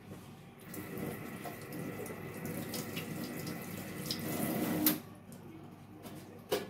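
Kitchen tap running while a bunch of dill is rinsed under it; the water stops abruptly about five seconds in. A short knock follows near the end.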